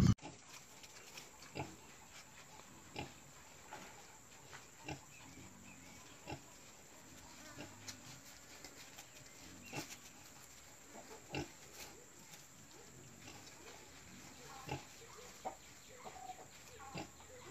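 A sow and her newborn piglets while the litter suckles: short, soft grunts, one every second or two.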